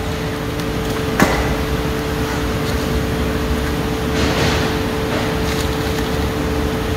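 Steady machinery hum with a constant mid-pitched tone. A single sharp knock comes about a second in, and a brief scratchy swell about four seconds in.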